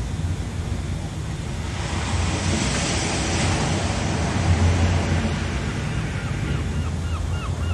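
Ocean waves and wind: a steady wash of surf with a deep rumble that swells toward the middle. From about six seconds in, a bird joins with a quick series of short, hooked calls.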